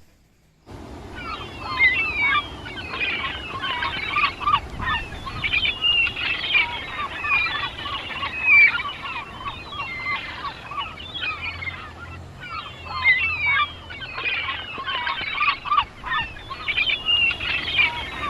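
A dense chorus of many small wild birds chirping and chattering at once, with quick overlapping high calls. It starts about a second in, after a brief silence.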